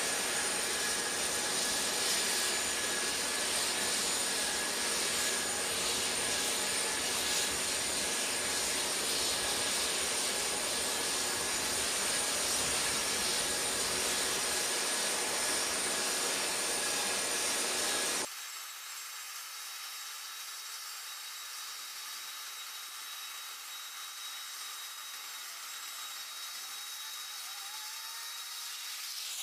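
Steady loud jet-turbine noise with a high whine. About eighteen seconds in it cuts off abruptly to a quieter, thinner hiss with a steady high tone.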